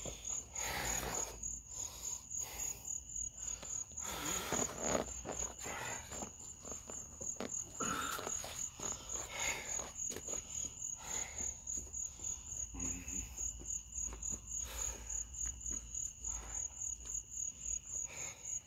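Crickets chirping in a steady, rapidly pulsing high-pitched trill. Irregular scuffs and swishes of a person moving through kicks come and go over it.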